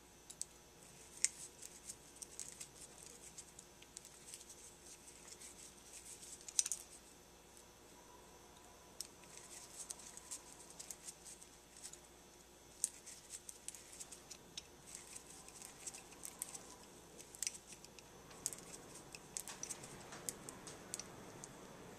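Faint, scattered small clicks and taps of a screwdriver and small metal carburetor parts being handled while the idle mixture screws are set on a Holley carburetor's metering block.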